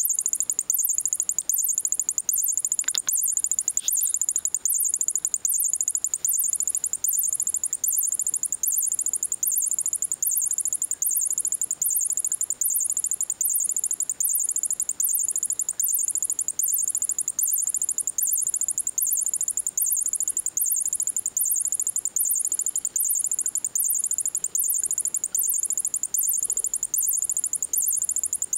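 Battery-powered squeaky plush mouse cat toy chirping non-stop: a shrill, very high-pitched electronic chirp repeating in an even, rapid rhythm at a steady level. The toy is stuck chirping because it short-circuited after getting wet in a water bowl.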